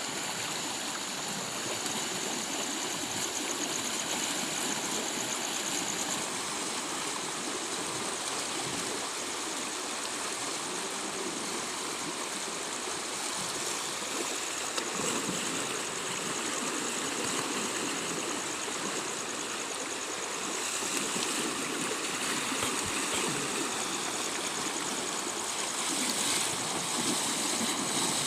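River water flowing, a steady rushing with no breaks.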